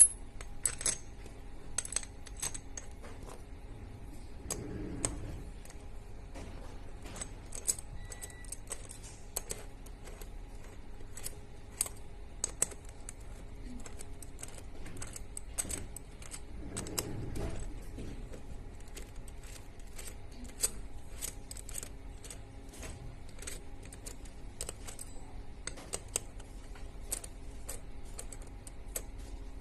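Small, irregular metallic clicks and ticks of a steel hex key working socket-head screws in an aluminium disassembly block, with a few duller handling rubs. A faint steady hum sits underneath.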